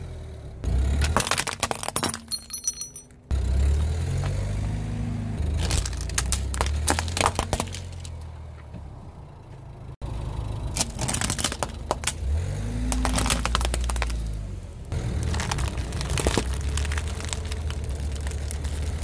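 A car tyre rolls over plastic objects, a plastic spring toy and plastic clothes pegs, crushing them in several separate passes with clusters of sharp cracks and crunches. The car's engine runs underneath, its note rising twice as the car pulls forward.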